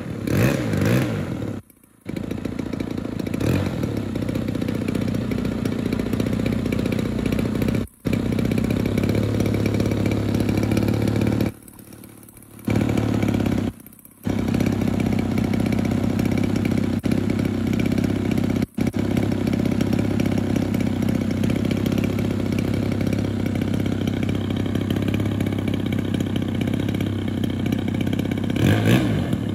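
Gas engine of a 92-inch Edge 540 RC plane running, a steady drone that cuts out abruptly for a moment several times.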